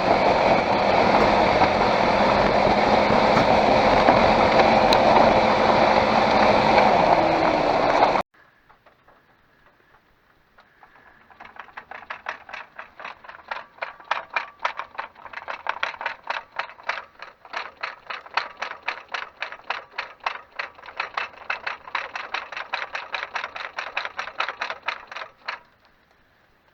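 Loud steady vehicle running noise that cuts off abruptly about eight seconds in. Then, over a quiet background, comes a fast regular rattling of sharp clicks, several a second, lasting about fourteen seconds. It is the Škoda Octavia's clatter over bumps and vibrations, which the owner suspects comes from the DQ200 7-speed DSG gearbox.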